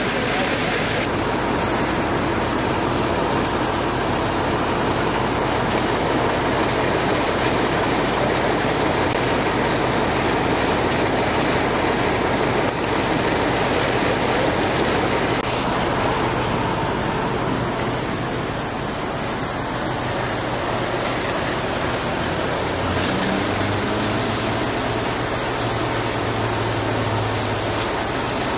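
Fire hose stream spraying water onto a burning boat: a steady rushing of water, with a faint low hum underneath.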